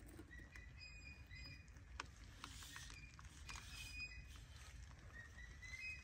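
Faint forest ambience: a steady low rumble with a few short, high chirps from distant small birds, and occasional light clicks and rustles.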